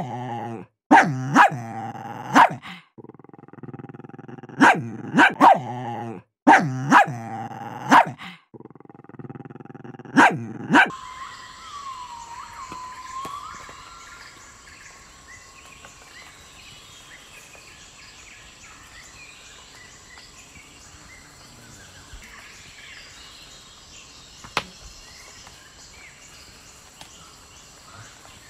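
A small dog barking in short, sharp yaps, about a dozen barks in pairs and threes, which stop after about ten seconds. A faint, thin background sound follows.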